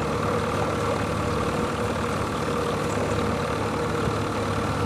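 Outboard motor of a river raft running steadily at low speed, an even low hum with a steady higher tone over it.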